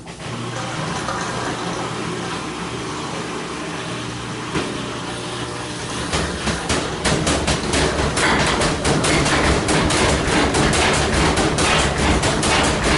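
GE GTW335ASN0WW top-load washer's motor kicking in with a steady hum, then from about six seconds in a rapid knocking, about four knocks a second, growing louder: the tub banging about with an uneven, balled-up load.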